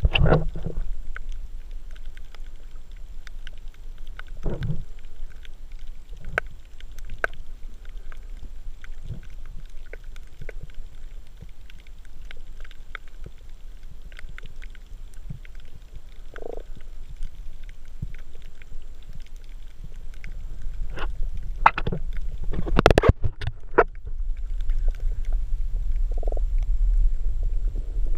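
Underwater ambience: a low rumble of moving water with scattered sharp clicks and pops, and a cluster of louder knocks about 22 to 23 seconds in.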